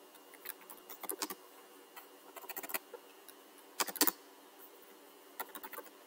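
Typing on a computer keyboard: irregular key clicks in short clusters, the loudest cluster about four seconds in.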